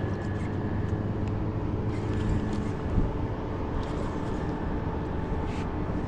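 Small boat's outboard motor idling steadily while the boat drifts, with light splashes of water and a single knock about three seconds in.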